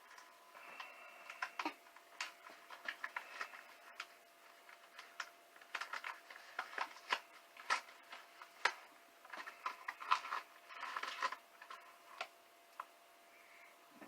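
Mailer packaging being handled and opened by hand: irregular crinkling and light clicks, some louder than others, scattered throughout.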